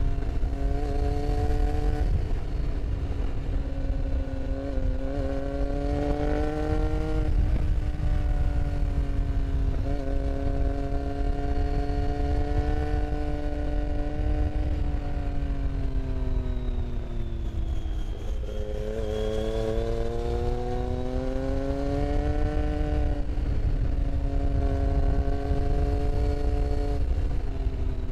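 Motorcycle engine running under way, heard from on board: its pitch climbs slowly and drops back at several gear changes, with a longer slowdown and pick-up near the middle. Wind rumble on the microphone lies under it.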